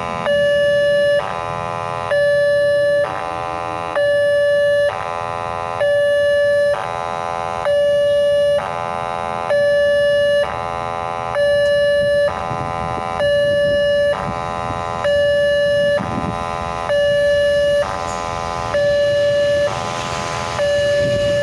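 Railway level-crossing warning siren sounding its alternating two-tone alarm. A clean, higher tone and a louder, buzzier lower tone each last about a second. The siren has a hoarse, rasping quality.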